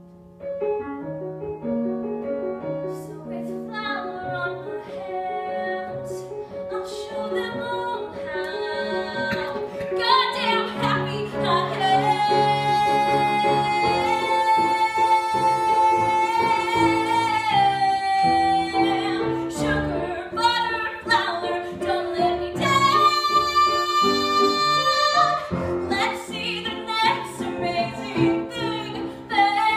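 A woman singing a musical-theatre song solo with piano accompaniment. She holds one long note about twelve seconds in and a higher one later on.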